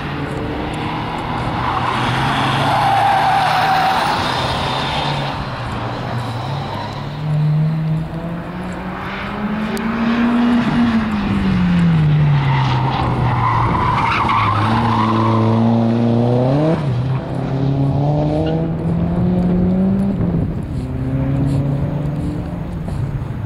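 Seat hatchback being driven hard around a race circuit: the engine revs rise and fall through the gears, with a long climb and a sudden drop near two-thirds of the way through. Tyres squeal through the corners twice, early and again around the middle.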